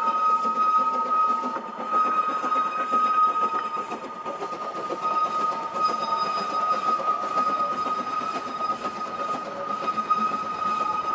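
Hunslet 2-6-2T steam locomotive 'Russell' working a passenger train on a narrow-gauge line, with a steady high whine throughout.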